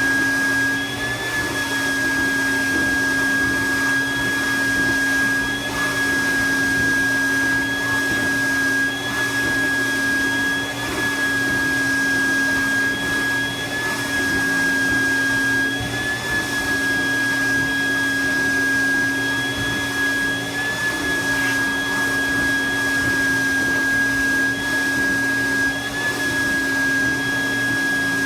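Build-A-Bear stuffing machine's blower running steadily, a loud, even whine with a slight blip in pitch every two to three seconds.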